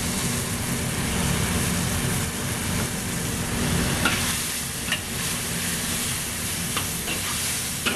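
Vegetables sizzling in a hot wok while a metal ladle stirs in cornstarch slurry to thicken the sauce. There is a steady hum underneath, and a few short ladle clicks against the wok in the second half.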